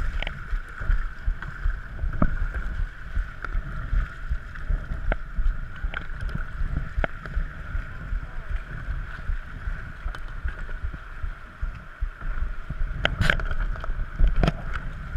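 Whitewater river rushing and splashing around a paddled kayak, heard from a camera on the kayak's deck: a steady rush of water with a fluctuating low rumble and scattered knocks and splashes from the paddle strokes, a sharper knock about 13 seconds in.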